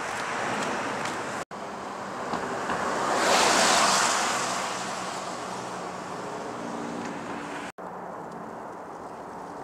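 Outdoor wind-and-traffic noise, cut off abruptly twice. In the middle stretch a vehicle passes on a steel bridge: the noise swells to a peak about three and a half seconds in and fades away. After the last cut there is a quieter, steady wash of outdoor noise beside the river.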